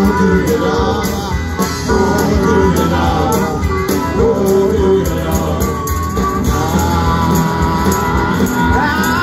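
Live rock band playing loudly through a PA, with electric guitars and drums, heard from the crowd in front of the stage.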